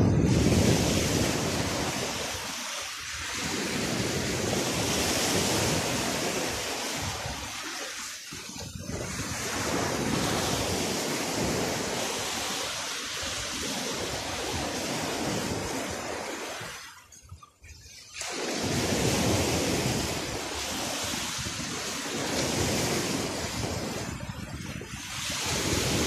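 Sea surf washing onto a sandy beach, mixed with wind buffeting the phone's microphone. The rushing noise swells and eases, and drops out almost entirely for about a second about two-thirds of the way through.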